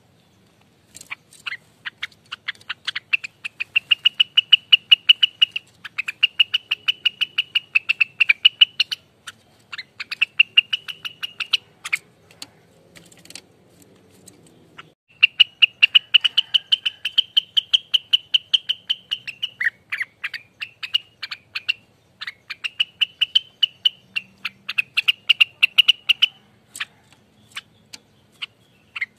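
Rengganis songbird singing its fast rattling "ropelan" song: rapid runs of sharp ticking notes that speed up and run together into high trills, in several loud phrases with short breaks and a longer lull about halfway through.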